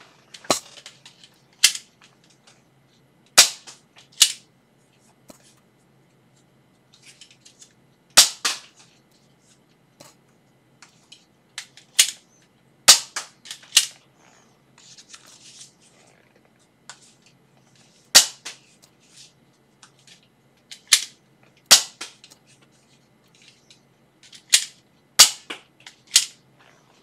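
Nerf Elite 2.0 Slyshot single-shot spring blaster being primed and fired again and again: sharp plastic snaps every few seconds, often in quick pairs. Quieter handling and rustling between the shots as darts are loaded.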